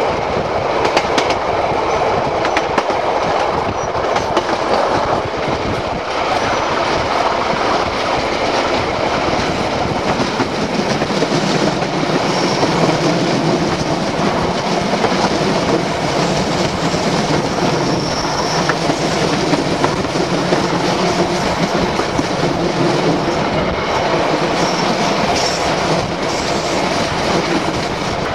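Narrow-gauge steam excursion train running steadily along the line, with a continuous rumble and the clickety-clack of carriage wheels over the rail joints.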